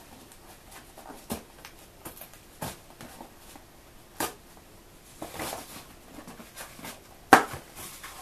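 Hands working a toy box's cardboard and plastic packaging: scattered light clicks and rustles as the doll's plastic fasteners are unscrewed, with a short rustle past the middle and the loudest click near the end.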